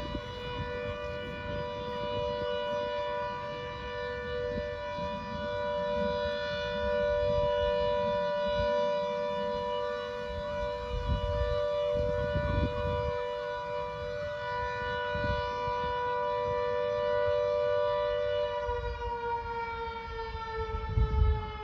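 Secomak CS8 warning siren on its monthly test, sounding a steady two-note chord. Near the end it starts to wind down, its pitch sliding lower.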